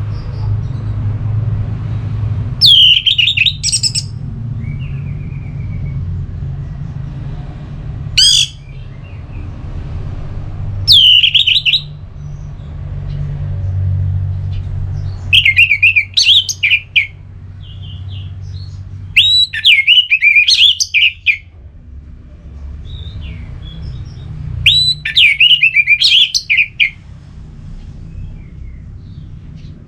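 Orange-headed thrush singing its full, loud 'ngeplong' song: six separate whistled phrases, roughly one every four seconds, with pauses between them. A steady low hum runs underneath.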